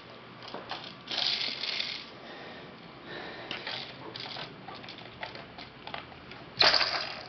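A baby's hands handling a small plastic toy on carpet: scattered clicks and rattles, with louder rattling bursts about a second in and near the end.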